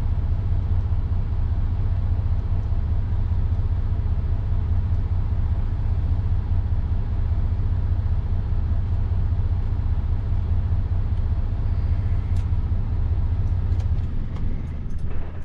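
Heavy truck's diesel engine running steadily, a low even rumble heard from inside the cab. It drops away sharply right at the end.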